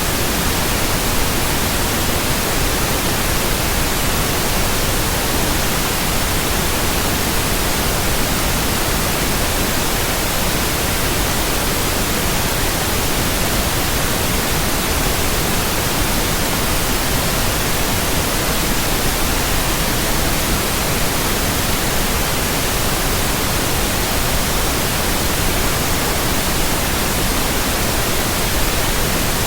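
Steady white noise: an even, unbroken hiss spread across all pitches, with no changes or events.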